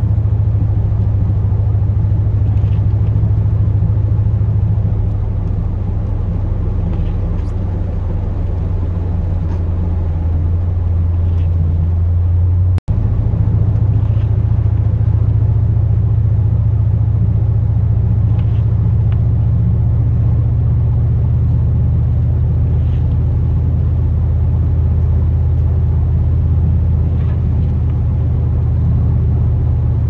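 Chevrolet Silverado plow truck driving, a steady low drone of engine and road rumble. Faint ticks come every few seconds, and the sound drops out for an instant about 13 seconds in.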